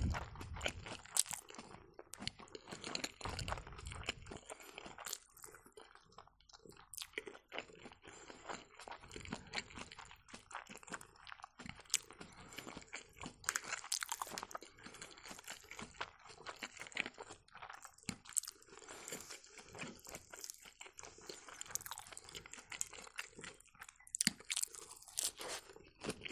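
Close-up chewing and crunching of lettuce-wrapped rice pancakes, with many irregular short crunches and clicks.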